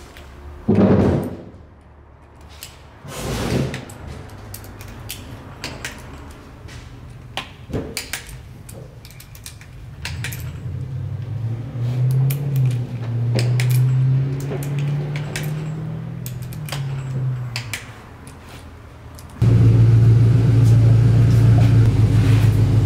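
Clicks and knocks of a torque wrench and tools as the oil pump bolts of a BTR automatic transmission are tightened to 30 Nm. About nineteen seconds in, a loud steady low drone starts suddenly.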